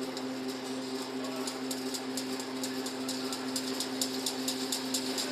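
Double-wire automatic chain link fence machine running: a steady electric motor hum under rapid metallic clicking from the weaving mechanism, about four clicks a second.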